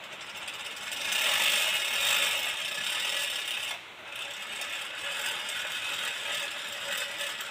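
Old cast-iron hand-cranked air blower being turned by hand, its gears and repaired impeller running with a rush of air. It gets going about a second in, stops for a moment a little past halfway, then carries on.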